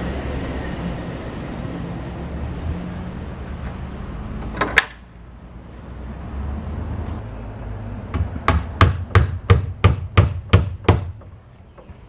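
A hammer striking wood: about nine sharp blows, roughly three a second, near the end, with a single sharp double knock about halfway through. Steady street noise sits underneath at the start.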